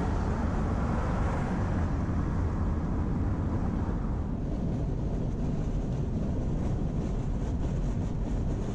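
Steady road and wind noise inside a car at highway speed, with a semi-truck passing close alongside; its noise fades about four seconds in as it pulls ahead.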